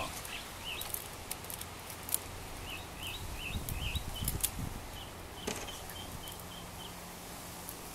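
A small bird chirping over and over in short, quick calls, with scattered light clicks and a brief low rumble about halfway through.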